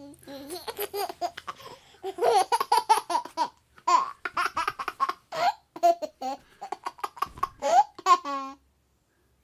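Baby laughing in several bouts of quick, high-pitched, repeated laughs with short pauses between them, falling silent briefly near the end.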